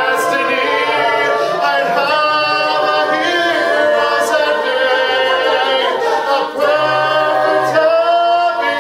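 A cappella group singing a musical-theatre song: a male soloist sings the lead over the group's sustained backing harmonies and a sung bass line, with no instruments.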